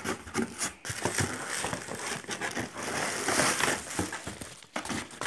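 Plastic packaging crinkling and rustling as hands rummage through a cardboard box of wrapped products, a steady run of small crackles that dips briefly near the end.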